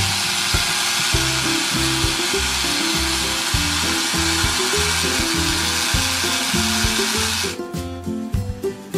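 Toy blender running with a steady electric whirring that stops about seven and a half seconds in, over background music.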